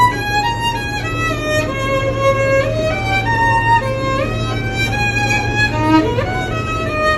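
Violin played solo by a busker: a slow melody of held notes with slides between them, over a steady low hum.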